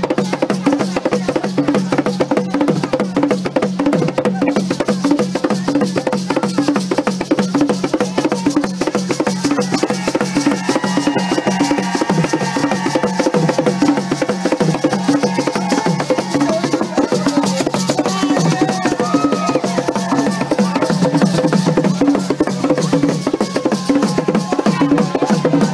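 Hand drums played in a fast, dense, driving rhythm, with voices joining in song about ten seconds in.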